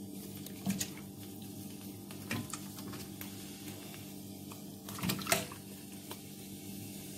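Pieces of salmon head going into a steel pot of water: a few wet splashes and knocks against the pot, the loudest about five seconds in, over a steady low hum.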